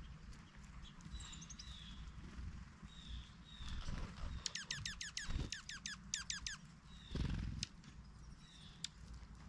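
Bird calls: two quick runs of high, falling notes, about six or seven notes each, a second apart, among faint short chirps. A low rumble runs underneath and swells briefly twice.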